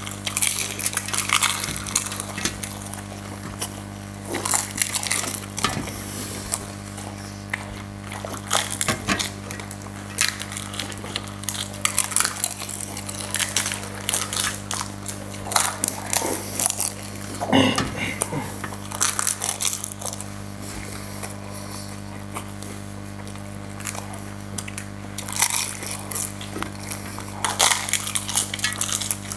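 Crisp panipuri shells being crunched and chewed, in many irregular bursts, over a steady low hum. A short pitched voice sound comes a little past halfway.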